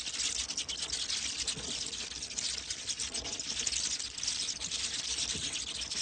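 Bats, a dense, continuous crackle of high clicks and squeaks.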